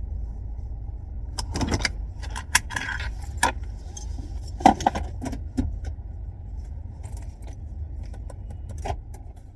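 A bunch of keys jangling and clicking in several bursts, over the low steady hum of a car idling.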